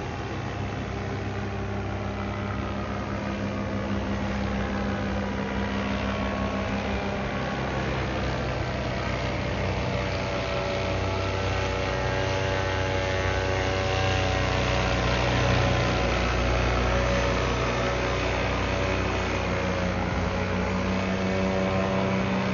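An engine running steadily for the whole stretch, a continuous hum whose pitch drifts slowly up and down.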